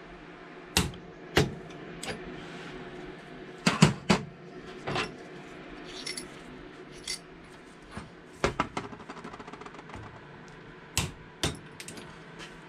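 Metal clinks and knocks of a wrench and diesel injector parts being handled while the injector adjuster nut caps are tightened, with a short rapid run of clicks a little past halfway.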